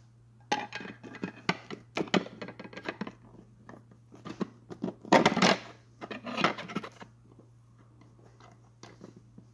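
Handling noise: a run of irregular clicks, scrapes and rustles of hard plastic close to the microphone, as plastic action figures are moved about. The loudest is a longer scrape about five seconds in, and the noise dies away after about seven seconds. A faint steady hum lies underneath.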